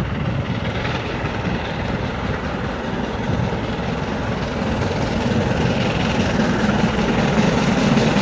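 BR Britannia class 4-6-2 steam locomotive 70013 and its train approaching at about 60 mph, the locomotive's working and running noise growing steadily louder.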